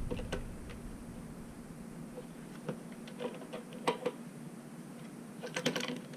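Scattered light clicks and taps of tools and small parts being handled while unscrewing a part, with a quick run of clicks near the end.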